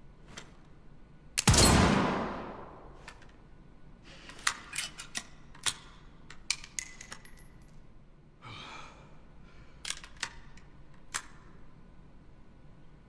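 Thompson Center Arms Encore single-shot pistol fired once: a sharp report that rings off over about a second. Then comes a string of sharp clicks, some ringing briefly, a short scrape and a few more clicks, typical of the break-action being handled after the shot.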